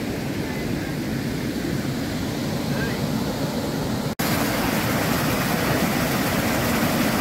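Steady rushing noise, heaviest in the low range, broken by a momentary dropout about four seconds in and then carrying on slightly louder.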